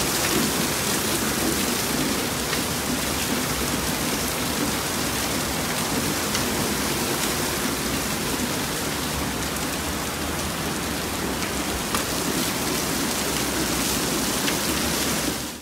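Heavy rain pouring down: a steady hiss with scattered drop taps. It cuts off suddenly at the very end.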